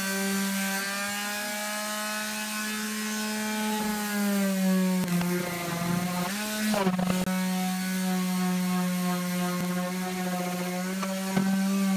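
Electric palm sander running continuously against wooden trim: a steady motor whine with a sanding hiss, dipping slightly in pitch around the middle.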